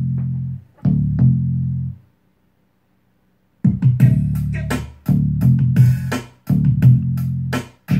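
Music with bass and guitar played loud through a home-built 60-watt discrete amplifier into a speaker, cutting out for about a second and a half in the middle before starting again.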